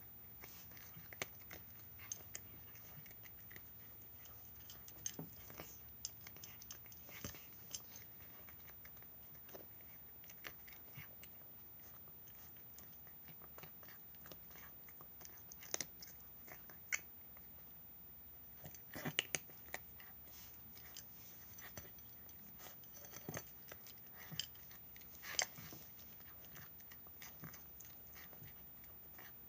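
A cat eating its dinner: faint, irregular chewing clicks and crunches that come in short clusters with pauses between.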